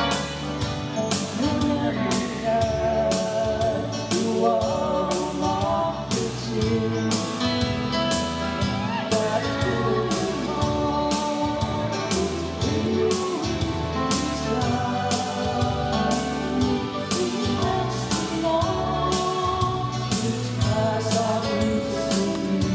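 Live song performance: a man and a woman singing over a strummed acoustic guitar and a band with a steady beat of about two strokes a second.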